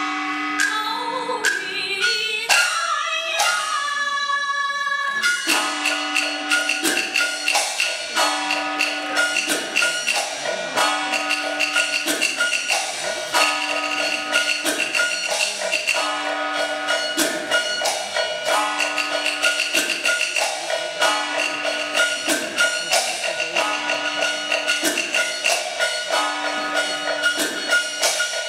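Sichuan opera accompaniment music. A sliding melodic line fills the first few seconds, then a busy, fast metallic percussion pattern sets in over a held tone, repeating in a cycle of about a second and a half.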